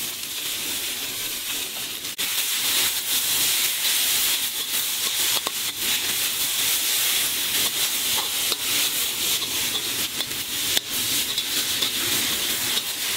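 Shredded turkey leg, seafood and onions sizzling in hot oil in a wok, a steady hiss, while a metal spatula stirs and scrapes them, with a few sharp clicks of the spatula against the wok.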